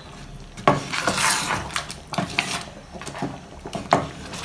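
A wooden spoon stirring a thick sauce in a stone-coated pan: a sharp knock against the pan a little under a second in, then irregular scraping with several lighter knocks.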